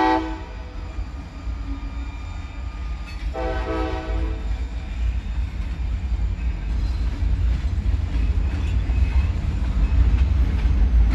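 Freight train locomotive horn sounding two blasts: one cuts off just after the start, and a second lasts about a second, a few seconds in. Under them is the steady low rumble of freight cars rolling past, growing louder toward the end.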